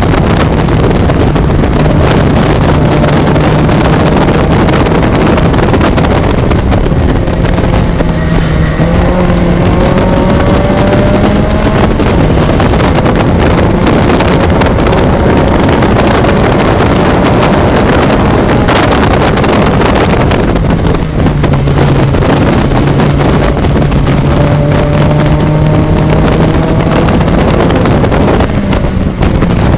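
Onboard sound of a VITA race car's Toyota 1.5-litre four-cylinder engine held at high revs at racing speed, its pitch slowly climbing as it pulls, with brief dips about 8 seconds in and near the end. Wind noise buffets the microphone.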